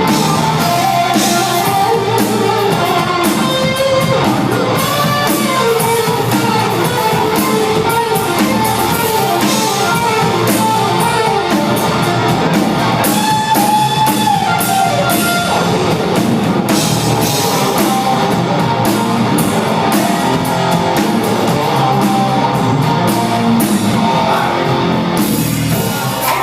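Live rock band playing: electric guitars over a steady drum-kit beat, loud and continuous.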